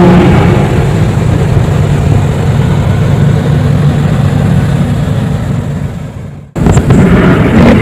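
A loud, steady low droning hum. It fades, cuts off abruptly about six and a half seconds in, then starts up again.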